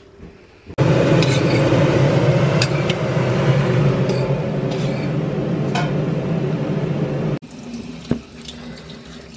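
Kitchen tap running hard into a stainless-steel pot: a loud, steady rush of water that starts suddenly about a second in and cuts off suddenly about seven seconds in. A few faint clicks and knocks follow.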